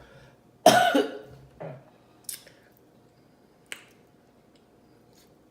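A short throaty vocal sound from the eater near the start, followed by a brief soft hiss and a sharp click, from a fizzy soda bottle's cap being eased open to let the gas out without foaming over.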